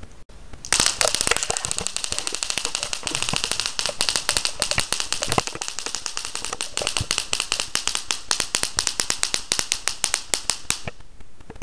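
High-voltage electric spark device arcing: a rapid, continuous string of sharp electric crackles lasting about ten seconds, starting about a second in and cutting off suddenly near the end.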